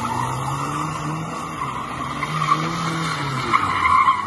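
Tyres squealing without a break as a 2013 Mazda MX-5 (NC3) slides sideways in a drift, its 2.0-litre inline-four revving up and down. The squeal grows loudest near the end.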